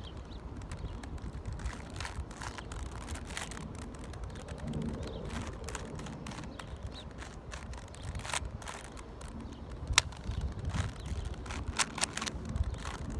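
Rapid, irregular clicking and clacking of a 3x3 puzzle cube's layers being turned by hand, over a low steady rumble. The sharpest click comes about ten seconds in.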